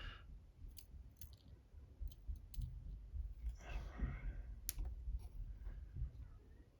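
Small, sharp metallic clicks from handling the pins, springs and parts of an Assa 600 lock cylinder as it is taken apart, a few scattered ticks with gaps between them. There is a brief soft hiss about halfway through.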